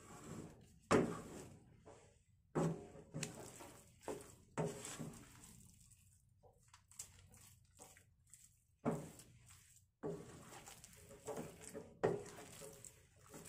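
Spatula or spoon working a thick turnip and rice-flour batter: irregular strokes and knocks about every second or two, with a short pause in the middle.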